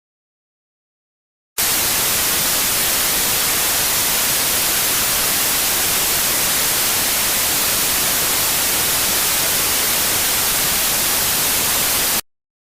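TV static hiss (white noise), steady and even, switching on abruptly about a second and a half in and cutting off abruptly near the end.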